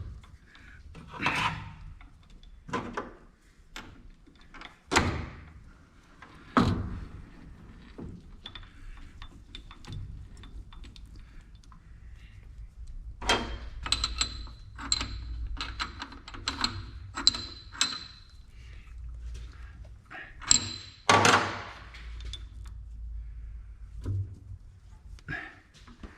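Metal parts and tools being handled at a metal lathe: scattered thunks and knocks over a low steady hum, with a run of short, ringing metal clinks in the middle.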